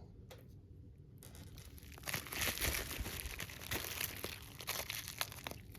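Packing material crinkling and tearing as it is pulled open by hand. A faint rustle starts about a second in and becomes a busy crackle of many small crinkles from about two seconds in.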